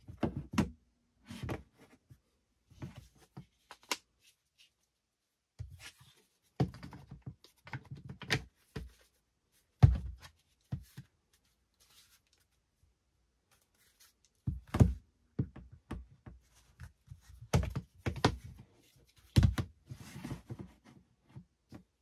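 Hard plastic clicks and knocks from a DeWalt drill's plastic housing halves being handled, fitted together and set down on a cutting mat. They come in irregular clusters, with the loudest knock about ten seconds in.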